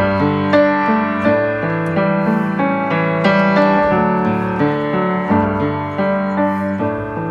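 Background music: a slow piano introduction, chords struck about every half second to second and left to ring.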